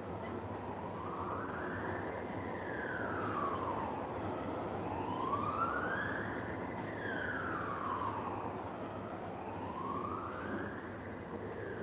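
A wailing siren whose pitch rises and falls slowly, each sweep taking about four and a half seconds, over a steady background hiss.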